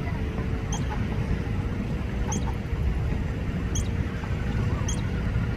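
A small songbird giving short high chirps, one about every second, over a steady low outdoor rumble.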